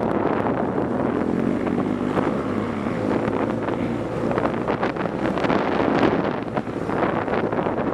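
BMW R 1200 GS Adventure's boxer-twin engine running hard on rough gravel, with wind rushing over the microphone and frequent short knocks and rattles from the bike bouncing over stones.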